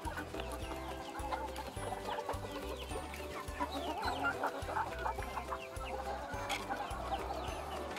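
A flock of chickens clucking, with many short, high, falling peeps scattered throughout.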